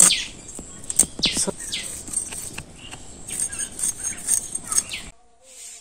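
A fish being worked against the blade of a boti, a floor-mounted curved knife: a quick, irregular run of short scraping and chopping strokes that stops abruptly a little after five seconds in.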